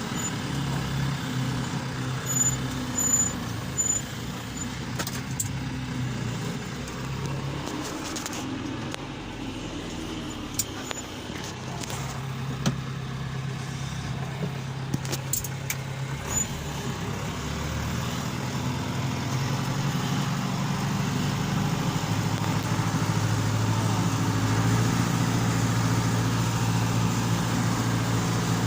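John Deere tractor's diesel engine running steadily under load while pulling a plough, with a few sharp clicks in the first half and the engine growing louder through the second half.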